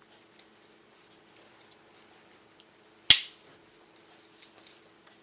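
A Swiss Army knife's tool snapping shut on its spring with one sharp click about three seconds in, with a few faint clicks of the tools being handled afterwards.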